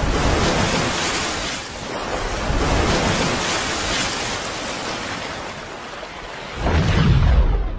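Whooshing intro sound effect: a swelling rush of noise that rises and dips, ending in a deep boom about seven seconds in that then fades away.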